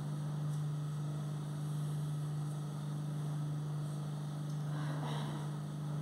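Steady low electrical hum, one unchanging tone with a fainter overtone, over faint room noise.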